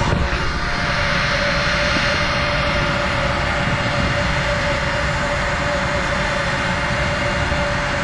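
Grain bin machinery running steadily: a loud, even rushing noise with a steady whine that does not change.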